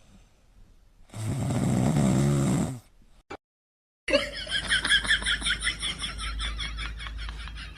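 A sleeping pet snoring: one long, loud snore about a second in. After a short silent gap, a different sound starts, a rapid run of even, high-pitched pulses.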